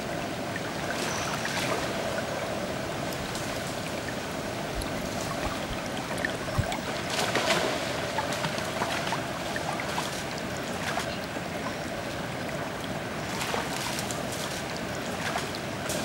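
Toque macaques splashing as they jump and drop into a shallow river, several sharp splashes, the loudest about seven seconds in, over the steady rush of flowing river water.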